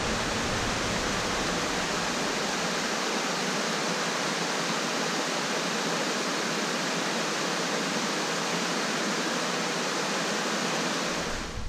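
Small stream waterfall spilling into a pool: a steady rush of water, with the stream running high after rain. It cuts off abruptly near the end.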